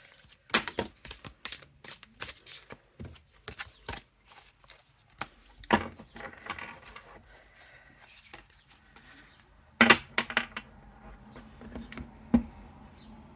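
Hands working at a tight cardboard tarot deck box and handling the cards: a run of sharp clicks, taps and rubbing, with louder knocks about six and ten seconds in.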